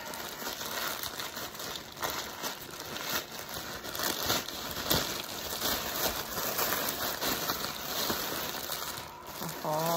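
Plastic mailer bag crinkling and rustling as it is opened by hand and a plastic-wrapped item is pulled out, with many small sharp crackles.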